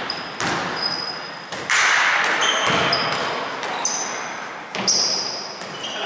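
A basketball bouncing on a hardwood gym floor, each bounce echoing in the large hall, with short high sneaker squeaks in between and a louder burst of noise a little under two seconds in.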